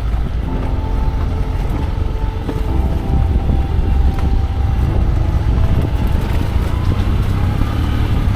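Motor vehicle engine running steadily under a heavy low rumble, with faint engine tones above it.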